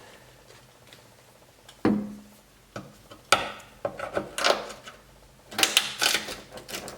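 Several separate knocks and short scraping rustles, the first with a brief low ring and a quick cluster of scrapes near the end.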